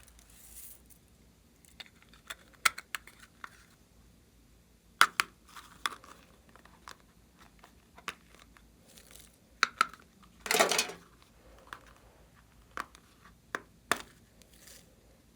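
Slime being handled by hand: scattered sharp pops and clicks, with a longer crackling squelch about ten seconds in.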